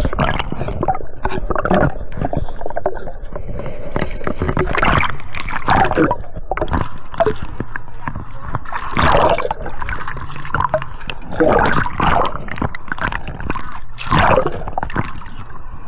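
Water sloshing and gurgling close to the microphone in irregular surges.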